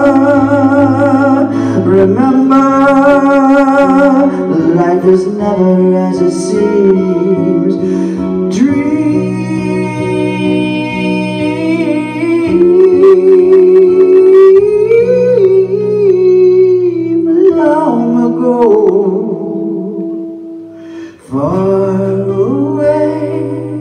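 A man singing, accompanying himself on an electric guitar played through a Fender amplifier. The music dips briefly about three seconds before the end, then comes back.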